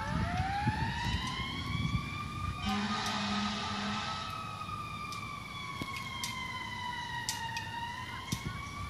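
Fire engine siren wailing, its pitch slowly rising and falling as the truck drives away and it fades a little. A brief lower blast sounds about three seconds in.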